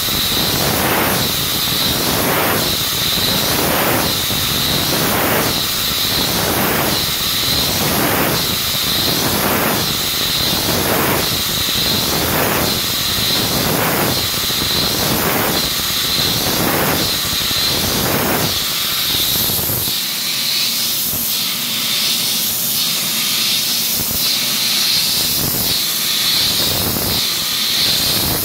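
CNC machining centre broaching an internal star profile into an aluminium part with a locked-spindle slotting tool: rhythmic cutting strokes a little more than one a second over a steady hiss. The strokes grow lighter about two-thirds of the way through.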